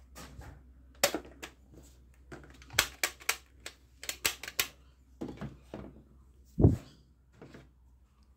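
Plastic foam-dart toy gun being handled and worked: clusters of sharp plastic clicks and clacks, then one heavier thump about six and a half seconds in.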